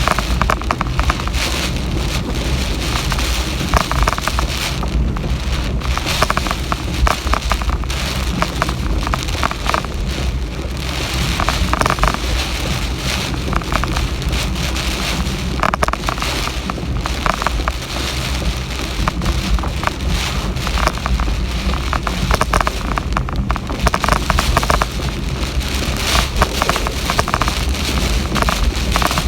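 Heavy typhoon rain pouring steadily and loudly, with a constant low rumble underneath.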